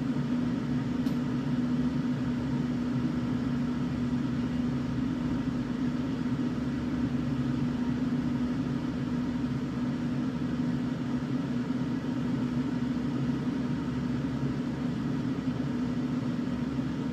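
Steady machine hum with a constant low tone, and a faint click about a second in.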